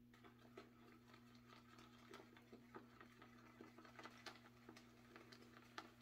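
Shaving brush whipping Derby Lemon shave cream into lather in a ceramic pottery bowl: a faint, quick, irregular run of small wet clicks and pops.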